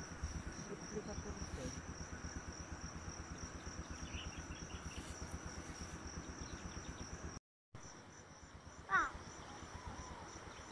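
Steady, high-pitched chirring of insects in the field, unbroken except for a brief dropout a little past the middle.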